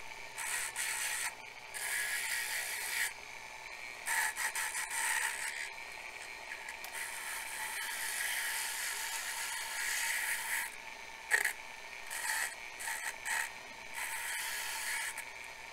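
Dremel 4300 rotary tool running with a steady whine, its small abrasive drum scraping against enamelled wire in repeated short bursts as it strips the enamel off.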